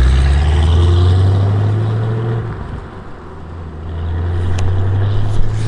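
Cadillac CT5-V Blackwing's supercharged 6.2-litre V8 pulling away under light throttle, with a deep, loud exhaust note. The note sags about halfway through, then builds again as the car drives off.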